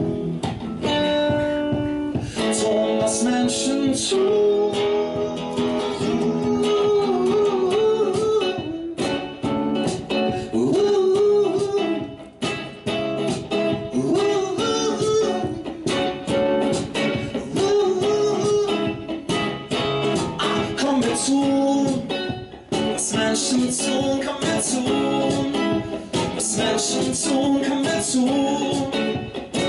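A man singing live with his own electric guitar: strummed, amplified guitar chords under a sung melody of long held notes that slide gently in pitch.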